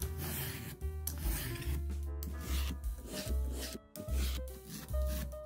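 A julienne peeler's toothed steel blade scraping down a Korean zucchini in repeated strokes, roughly one a second, shaving it into thin strands. Background music plays underneath.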